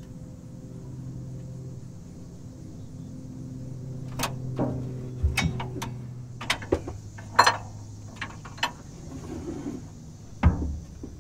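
Metal clinks and knocks as a bent drum-type transmission parking-brake shoe assembly is worked loose and pulled off, a string of sharp knocks in the second half. A steady low hum runs underneath and fades out after about eight seconds.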